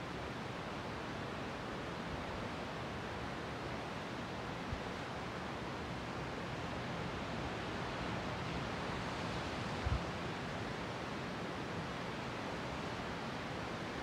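Steady wash of sea surf. Two brief low thumps come about five and ten seconds in.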